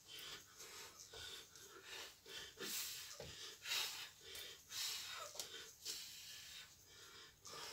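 A woman breathing hard from exertion while exercising: short, hissy breaths repeating about once a second.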